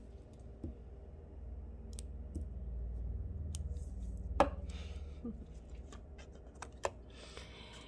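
Glue stick rubbed over a small paper cutout, with scattered light clicks and taps as the paper piece is handled and pressed onto a cardboard box. The sharpest click comes about four and a half seconds in.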